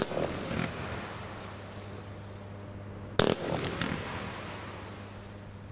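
Weco Jungle Fever 20 mm fire-pot battery firing: a sharp bang at the start and another about three seconds in, each a fanned volley of shots followed by a few smaller pops that die away, over a steady low hum.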